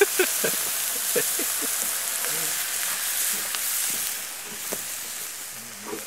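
Steaks sizzling on a flat steel barbecue hotplate over a wood fire, an even hiss with a few sharp crackling pops in the first second or so. The sizzle grows quieter after about four seconds.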